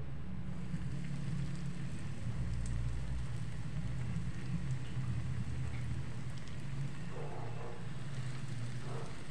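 Breaded bread rolls with tikoy and cheese deep-frying in a pot of hot oil, sizzling steadily, over a low steady hum.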